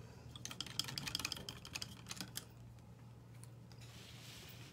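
A quick run of light clicks and taps, like small hard objects being handled, lasting about two seconds. A faint soft hiss follows near the end, over a low steady hum.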